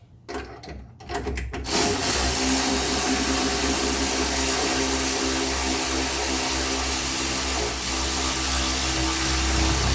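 A few light clicks, then a motor-driven machine starts suddenly about one and a half seconds in and runs steadily and loudly, with a wavering hum under an even hiss.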